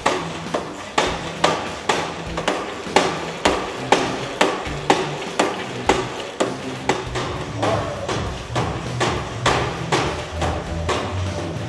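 VersaClimber climbing machine in hard use: its handles and pedals slide along the rails and knock at each stroke, a steady rhythm of about two clacks a second.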